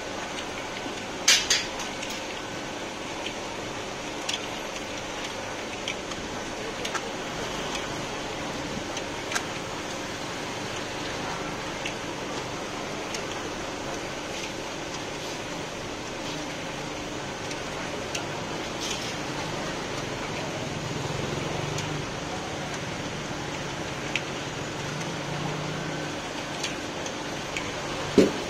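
Steady hum and rattle of a chestnut-roasting pan, chestnuts stirring through hot stones in a big steel pan. Scattered sharp metallic clicks from the perforated metal scoop cut through it, with a louder clack a little over a second in and another just before the end.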